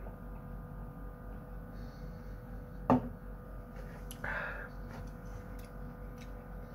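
A drinking glass set down on a table with a single sharp knock about three seconds in, followed a second later by a brief breathy sound, over a steady low electrical hum.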